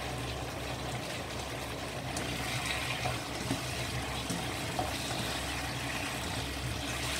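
Sweet-and-sour sauce bubbling and sizzling as it reduces around chicken wings in a nonstick wok, a steady hiss. From about halfway, a spatula stirs and turns the wings through the thickening sauce.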